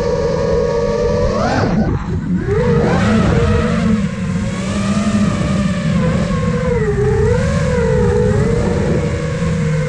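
Onboard sound of a 5-inch FPV quadcopter's brushless motors and propellers whining. The pitch rises sharply about one and a half seconds in, drops suddenly, then wavers up and down with the throttle.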